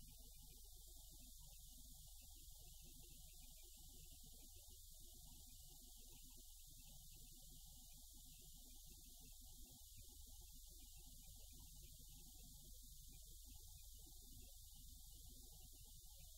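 Near silence: a faint, steady low hum and hiss, with no distinct sound standing out.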